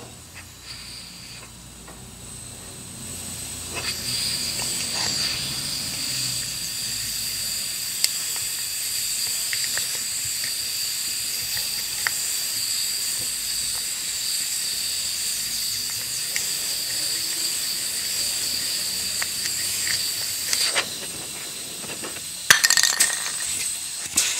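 Nitrogen hissing steadily out of the freezer's open copper refrigerant line, building up over the first few seconds. It is a purge that blows shavings out and keeps debris from getting into the system while the hole is deburred. The hiss eases near the end, with a few light metallic clicks.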